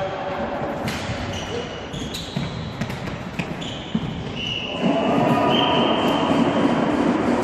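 Floorball play on an indoor court: sneakers squeaking on the floor, and sharp clacks of sticks and the plastic ball, echoing in the hall. About five seconds in, a louder, steadier din of movement and players' voices rises.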